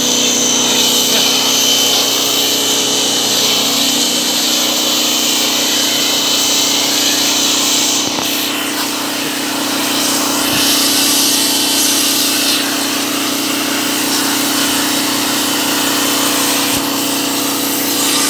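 Pressure washer running steadily: a constant motor hum under the hiss of its water jet spraying into a radiator core to wash out dust.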